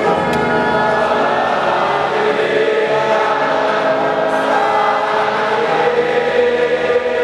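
A large stadium crowd of football supporters sings together in unison, holding long sustained notes.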